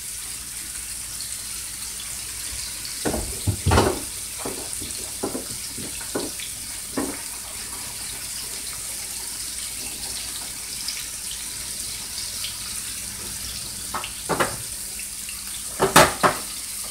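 Floured beef short ribs frying in a hot skillet: a steady sizzling hiss with scattered sharp pops and crackles. A few louder cracks come a few seconds in and near the end.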